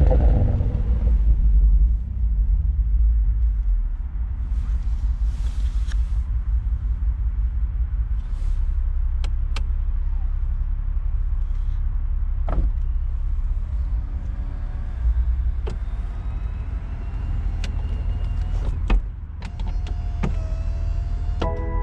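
BMW Z4 M40i's B58 3-litre twin-turbo straight-six running at low revs, a steady low rumble, with a few short, sharp pops from the exhaust.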